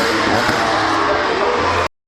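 2013 Formula One cars' 2.4-litre V8 engines screaming at high revs, several overlapping notes with pitch sliding as the cars pass. The sound cuts off abruptly near the end.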